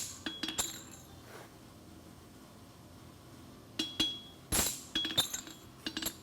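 Hammer blows on a steel anvil, each ending in a short metallic ring, as an aluminum horseshoe is shaped over the anvil's edge. Three strikes at the start, a pause of about three seconds, then a quicker run of about eight blows.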